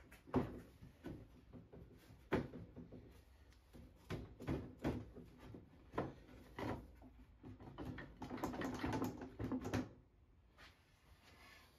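Irregular knocks and clicks of a wooden desk seat being handled and worked on its cast-iron frame bracket, with a denser scraping rattle for about two seconds near the end.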